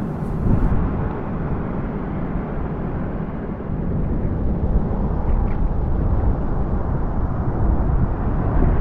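Wind buffeting the microphone over surf at the reef, a steady low rumble. The higher hiss drops away less than a second in.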